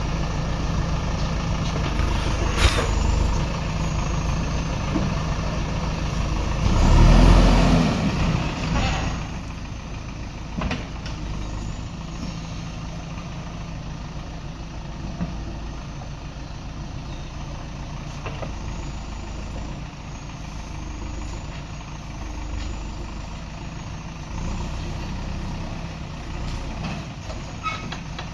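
Diesel engine of a JCB 3DX backhoe loader running steadily, with a loud burst of noise about seven seconds in and short sharp knocks near three and eleven seconds.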